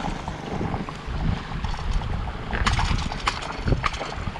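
Wind rumbling on the microphone while a gaffed Spanish mackerel thrashes and splashes at the boat's side, with a few sharp splashes or knocks from about two and a half seconds in.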